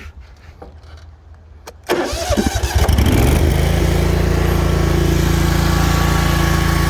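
Honda GXV530 V-twin engine on a Hustler Fastrak zero-turn mower being started: after about two seconds the starter cranks briefly, the engine catches about a second later, then runs steadily above idle.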